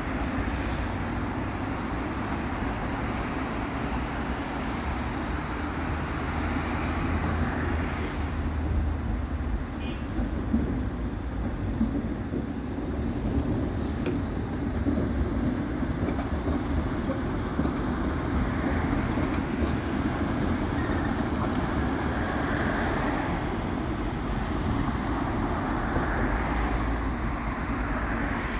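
Steady road traffic, cars passing continuously, with a tram passing on its rails about halfway through.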